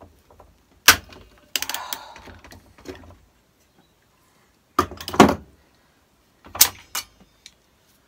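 Hand pop-rivet gun setting rivets through galvanized steel sheet: a few sharp snaps as the rivet mandrels break, with metallic clattering in between.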